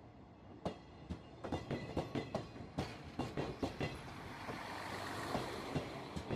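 Passing train, its wheels clicking sharply over rail joints in quick groups, with a rushing noise from the passing cars swelling in the second half.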